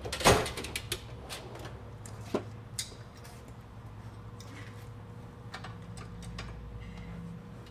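A loud metallic clank about a third of a second in, then scattered clicks and taps of hand tools on steel. From about five seconds on, a ratcheting wrench clicks in short runs as a nut on the front suspension is tightened.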